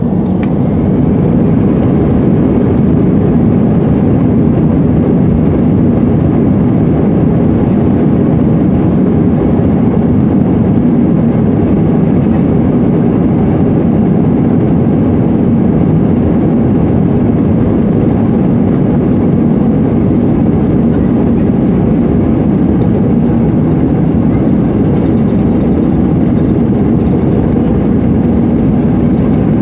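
Airbus A320's jet engines at takeoff thrust heard inside the cabin during the takeoff run: a loud, steady rumble that swells to full level in the first second and holds.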